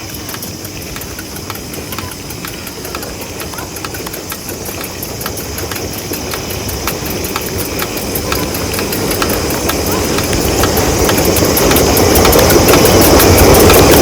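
Train approaching: a steady rumble with rapid, even clicking that grows steadily louder, then cuts off suddenly.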